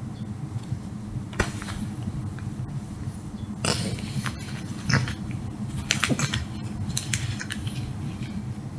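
A pet cat at play: scattered short rustles and scuffles over a steady low hum.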